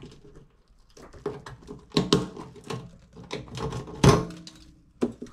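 Clunks, knocks and scraping of an old stainless kitchen-sink basket strainer being worked loose and pulled out of the drain opening from underneath the sink, with a louder thunk about four seconds in.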